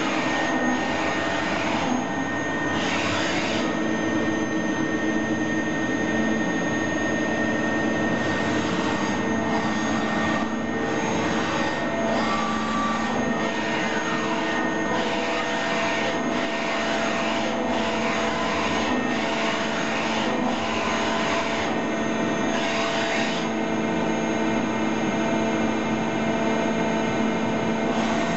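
Spinner TM seven-axis CNC lathe running: a steady machine hum with several steady whines from its drives. A hissing rush, which fits the coolant spray seen in the work area, swells and fades several times.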